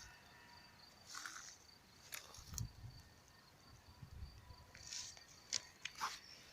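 A faint, steady, high-pitched insect trill in open countryside, with scattered rustles and a few soft thumps.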